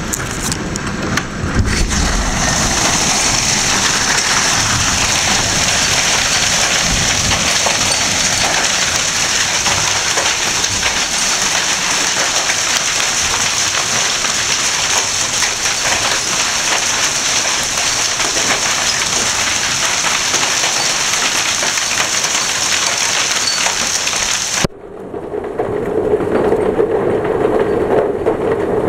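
Hail and heavy rain pelting down, a loud, dense hiss of countless small impacts. About 25 seconds in it cuts off abruptly and a duller, lower rushing sound follows.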